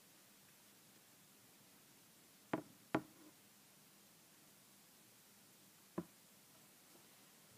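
Near silence with three short, sharp knocks: two about half a second apart, then one more about three seconds later.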